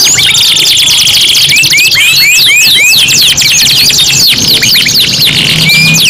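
Three domestic canaries' songs layered together: fast rolling trills of repeated downward-sweeping notes, with a buzzy held note about a second in.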